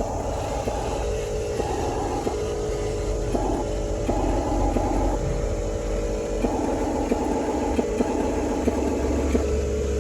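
Small electric motors and gearboxes of a Huina remote-control construction model whirring in short starts and stops over a steady low hum, as the controls are worked on and off.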